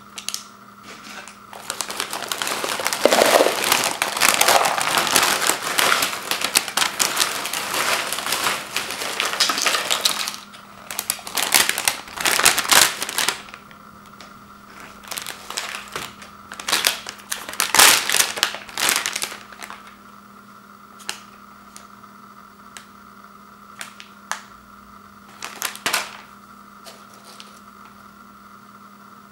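Kettle-cooked potato chips poured from their foil-lined snack bag into a plastic bowl: about eight seconds of dense crinkling and rattling. After that come shorter spells of bag rustling and a few light clicks as single chips are handled.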